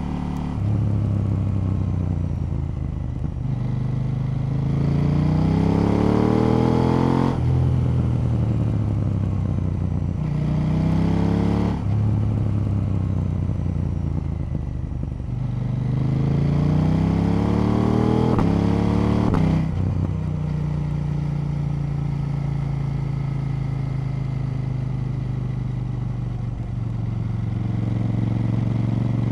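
KTM 890 Duke parallel-twin motorcycle engine under way, its revs climbing in three pulls that each end in a sudden drop. After that it runs at a steady cruise, picking up slightly near the end.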